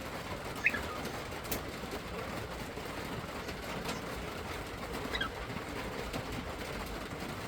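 Pearl pied cockatiel giving a few soft, short chirps: one about a second in and a quick falling string of chirps about five seconds in, over a steady low background hum.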